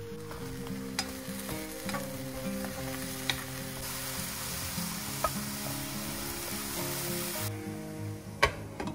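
Diced eggplant sizzling as it fries in a frying pan while a spatula stirs it, with a few sharp taps on the pan. The sizzle is strongest in the second half and cuts off suddenly near the end, followed by a loud clink as a glass lid goes onto the pan.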